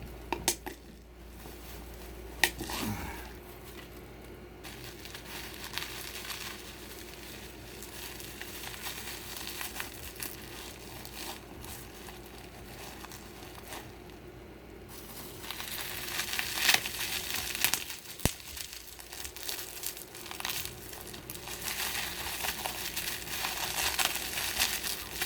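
Plastic bubble wrap being handled and crumpled by hand, crinkling steadily with scattered sharp clicks. It gets busier and louder in the last ten seconds.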